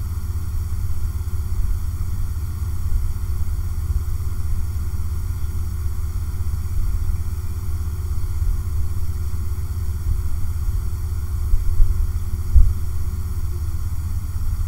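Steady low background rumble with a faint steady hum, and two brief knocks near the end.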